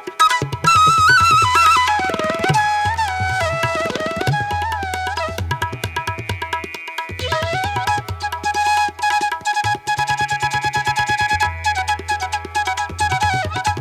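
Background music: Indian instrumental music with tabla-style hand-drum strokes under a gliding melody line.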